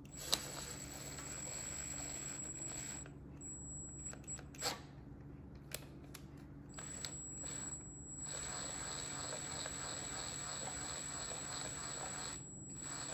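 Light handling of small metal engine parts, with a few sharp clicks, over a steady low hum and a faint high whine.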